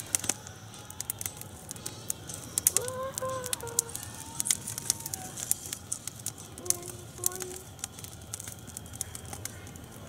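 Small wood campfire of split kindling crackling and popping in a steel fire ring, with many sharp irregular snaps. A few short pitched calls sound in the background about three and seven seconds in.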